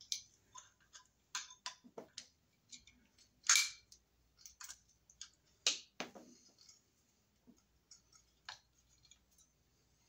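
Pliers clicking and snapping against a switch box, in irregular sharp clicks with two louder snaps near the middle.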